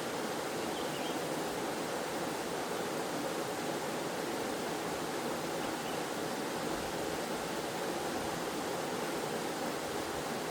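Waterfall and stream water flowing steadily, an even rushing with no breaks or changes.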